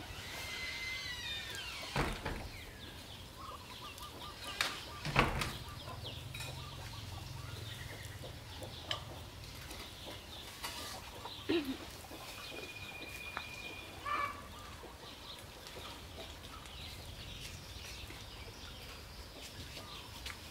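Birds calling now and then, short falling chirps near the start and a held whistle about two-thirds in, among scattered clicks and soft knocks.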